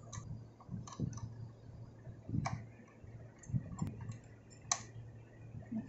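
Small metal parts clicking and tapping as the shuttle hook is fitted back into the hook race of an Usha Janome Marvela sewing machine, after jammed thread was cleared out. About half a dozen scattered clicks; the sharpest comes about three-quarters of the way through.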